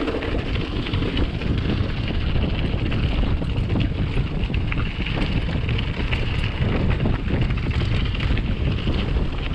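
Wind rushing over the microphone of a mountain bike riding down a rocky gravel trail, with the steady rattle and crunch of the bike and its tyres over stones.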